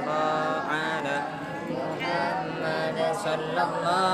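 A gathering of voices chanting dzikir together, a melodic Islamic remembrance sung in long held, wavering phrases.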